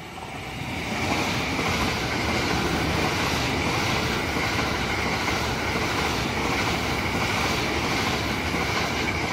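JR West 681/683-series limited express electric train passing at speed below: the rush of wheels on rail builds over the first second, then holds steady with a high whine running through it.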